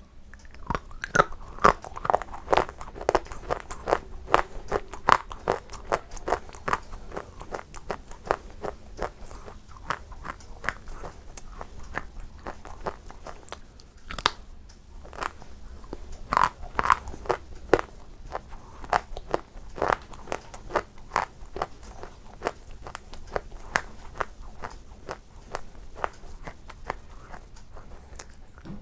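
Biting and chewing through brittle layered white shale: crisp, cracking crunches between bouts of chewing. The crunches are thickest in the first few seconds and again past the middle, with one sharp crack about halfway and softer chewing near the end.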